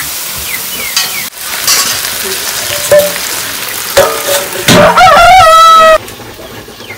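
Chicken leg pieces sizzling and frying in a pan as they are stirred, with small crackles and pops. About two-thirds of the way in, a loud wavering tone with overtones rises over the frying for about a second and a half, then cuts off suddenly.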